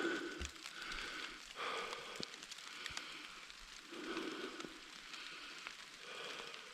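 Steady rain falling, with scattered sharp drip clicks and a soft swishing that comes back about every one to two seconds.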